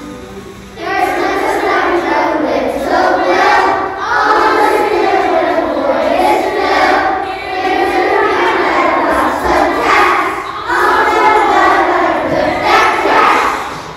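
A large group of young children singing together in unison. It starts about a second in, with a short break near the end.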